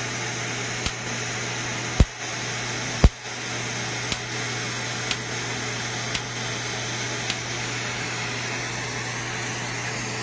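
Erbium laser handpiece firing on facial skin, a sharp click about once a second, with two louder snaps about two and three seconds in. Under it the steady rushing hiss of a smoke evacuator's suction hose drawing off the laser plume.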